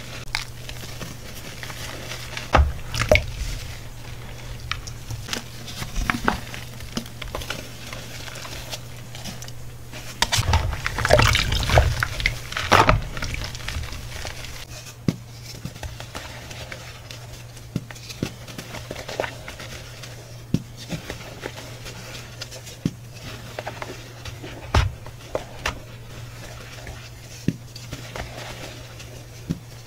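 Hands squeezing and crumbling hydrophobic chalk powder: scattered soft crunches and crackles, with a denser, louder run of crunching about a third of the way in. A steady low hum runs underneath.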